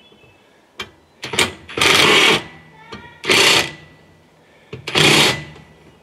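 Cordless impact driver running in three short bursts, driving bolts into the sawmill's legs, with a few sharp clicks between.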